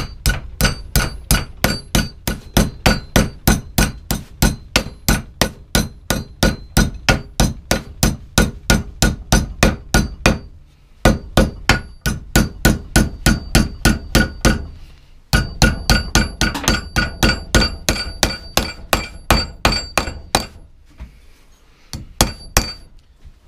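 Hammer striking a strip of aluminum clamped in a bench vise, bending it over into a right-angle bend. Quick ringing metal blows come about three a second in three runs with short pauses between, then a few lighter taps near the end.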